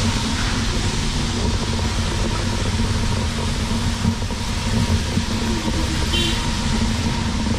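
City street traffic on a wet road: car engines running at low speed under a steady hiss.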